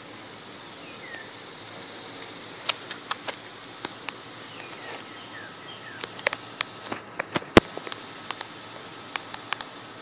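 Irregular sharp clicks and ticks, a couple of dozen, scattered through the second half with the loudest about three-quarters of the way in, as an eastern cicada killer wasp and the cicada it has stung struggle on bare concrete. They sit over a faint steady outdoor hiss with a few short falling chirps.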